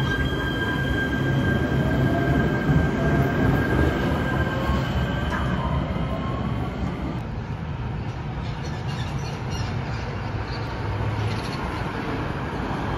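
Kinkisharyo P3010 light-rail train pulling out of a station, its traction motors whining up in pitch as it gathers speed over a steady rumble. After about seven seconds a steadier rumble of a light-rail train on street track takes over, with a few clicks from the wheels.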